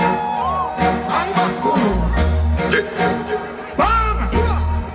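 Dancehall music playing loud, with a heavy bass line whose notes start and stop.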